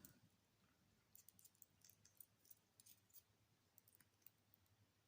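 Faint, irregular clicking of a hook pick working the serrated and spool security pins inside an Ace round-body lock under a wire tensioner, a string of small ticks starting about a second in.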